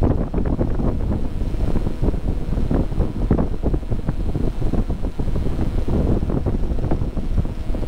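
Wind buffeting the microphone of a handlebar-mounted action camera on a motorcycle being ridden at road speed, a loud, uneven rumble and flutter that buries the engine.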